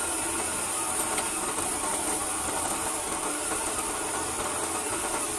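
Electric abrasive cut-off saw grinding through a bundle of steel rebar, a steady grinding noise.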